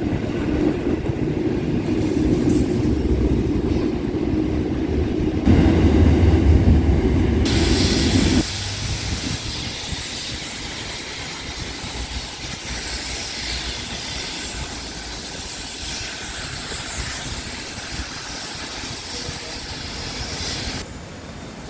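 Train at a station: a heavy low rumble that swells about five seconds in and cuts off sharply at about eight seconds, followed by a steady hiss.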